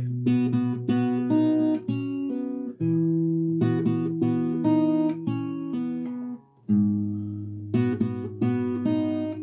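Acoustic guitar played fingerstyle: a short chord-melody phrase of plucked notes over a ringing bass note, with open strings let ring, played through twice with a brief break in the middle.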